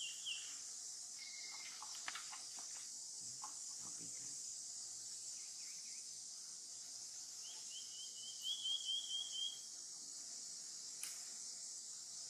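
Steady high-pitched insect drone. A quick run of high chirping notes comes about eight seconds in, with a few soft clicks and rustles scattered around it.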